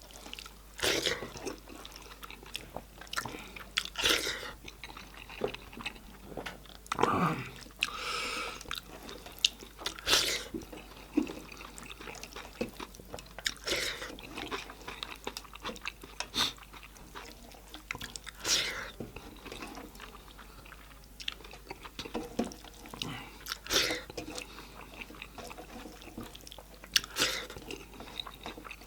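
Close-up chewing and biting into goat-head meat and bone, with irregular crunches and wet mouth sounds.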